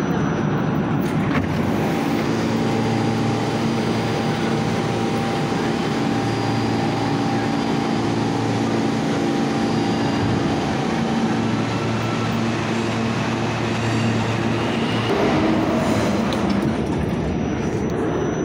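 New York City subway train running between stations: a steady rumble of wheels on rail with a continuous hum.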